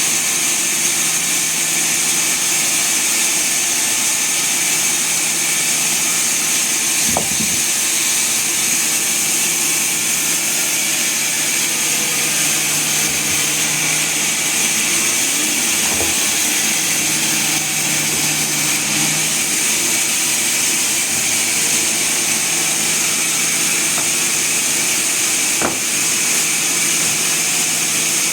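Sawmill saw running steadily with a loud high hiss, a low hum that comes and goes, and three brief knocks spread through.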